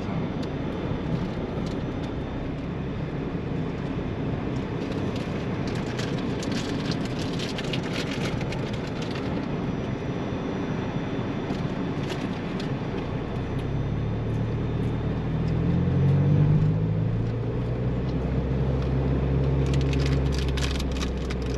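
4x4 vehicle driving over sand dunes: a steady rumble with scattered clicks and rattles. About two-thirds of the way through, the engine note comes up strongly as the engine works harder.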